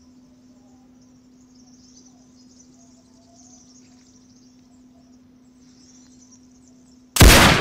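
Faint insects chirping over a low steady hum, then a single loud rifle shot about seven seconds in.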